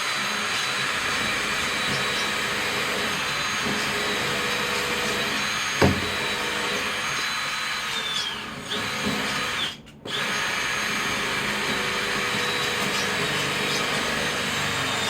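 Power drill running steadily with a high whine for about nine and a half seconds, its pitch sagging just before it stops briefly, then running again for the rest. A single sharp knock about six seconds in.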